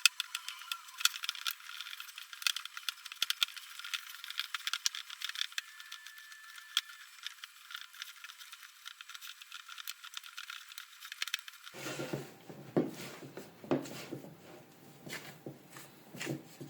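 Food preparation sounds: a fast run of light clicks and rattling, then after about twelve seconds a few duller taps and knocks.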